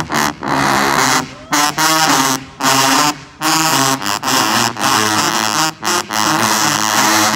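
A marching band tuba section playing contra tubas loud, in punchy low brass phrases. The phrases are cut by several short, sharp stops.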